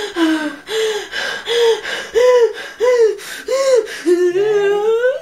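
A woman crying in short gasping sobs, about seven rising-and-falling voiced cries roughly two-thirds of a second apart, ending in a longer rising wail.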